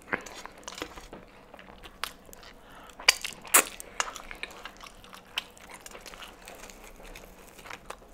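Popeyes fried chicken being eaten close to the microphone: scattered crackles and crunches as the crispy breading is picked apart by hand and chewed, with two sharp crunches about three seconds in.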